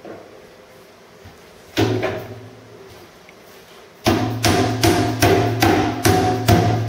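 Hammer blows on a wrought-iron stair baluster, driving it down into its hole in the tread, the iron ringing after each blow. One blow about two seconds in, then a steady run of blows, about three a second, from about four seconds in.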